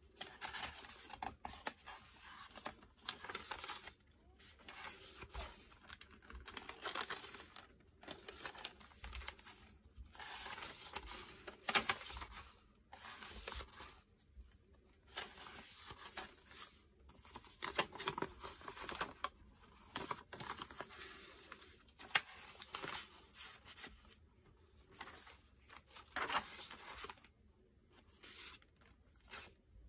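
Paper rustling as the coffee-dyed pages of a handmade junk journal are turned and its cards and tags handled, in repeated swishes with short pauses between them.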